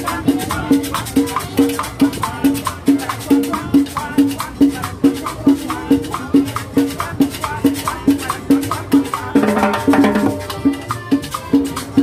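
Live cumbia from a street combo: drums keep a steady, even beat under a repeating melody line, with a brief louder burst just before the end.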